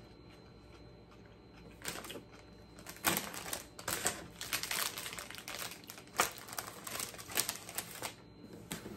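A plastic potato chip bag being handled and crumpled, making a run of quick crinkling crackles from about three seconds in, after one short crackle just before.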